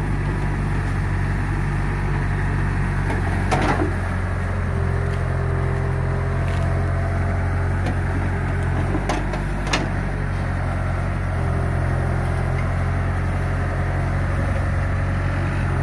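Old hydraulic excavator's diesel engine running steadily as it digs mud, with a couple of sharp knocks from the machine about four seconds in and near ten seconds.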